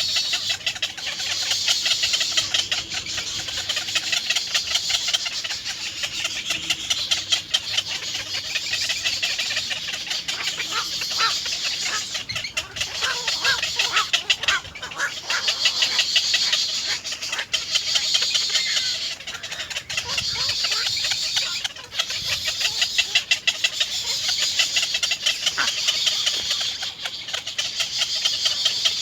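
Little egret chicks begging at the nest: rapid, continuous chattering calls that swell and fade in waves every couple of seconds.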